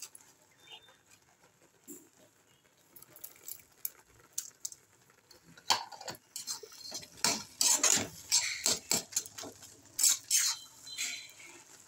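Steel spatula stirring and scraping wilted gongura leaves in an iron kadai, metal scraping on metal. A few light clicks at first, then a quick run of scrapes from about halfway through.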